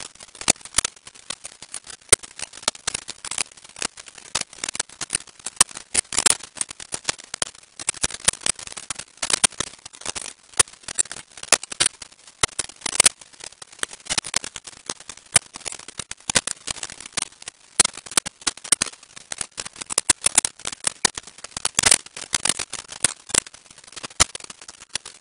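Dense, irregular crackling clicks, many a second, with no speech or music: noise on the soundtrack.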